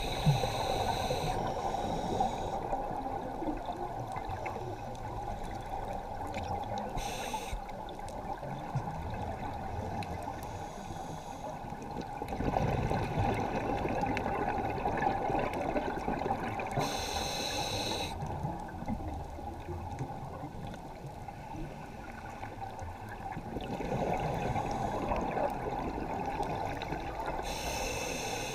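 Scuba diver's breathing heard underwater: a brief hiss from the regulator followed by longer stretches of bubbling on the exhale, repeating roughly every ten seconds over a steady underwater rush.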